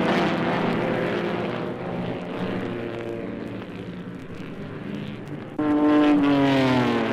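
Auto race: racing car engines running at speed past the listener, their notes dropping in pitch as they go by. One car passes close and loud near the end, its engine note falling steadily.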